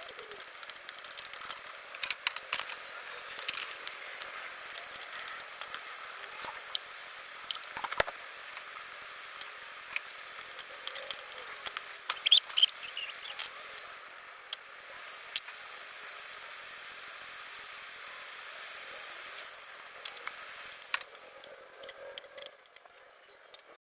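Chicken thighs sizzling in a frying pan: a steady hiss scattered with sharp crackles and pops of hot oil. The hiss goes smoother and steadier for a few seconds in the second half, then dies away near the end.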